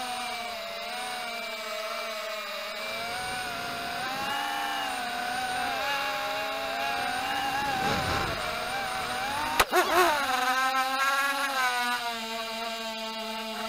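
Walkera Rodeo 110 mini quadcopter's brushless motors and propellers whining, the pitch rising and falling as the throttle changes. A sharp knock comes about ten seconds in, the loudest moment, and the motors climb in pitch again straight after.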